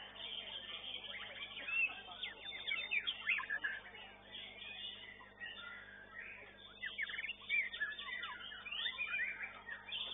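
Caged songbirds singing at once in fast, overlapping whistled phrases and chirps, as at a songbird singing contest.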